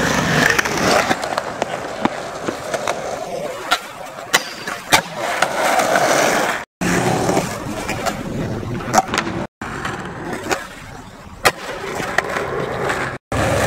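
Skateboard wheels rolling on concrete, with repeated sharp clacks of the board hitting the ground. It is broken three times by brief gaps of silence.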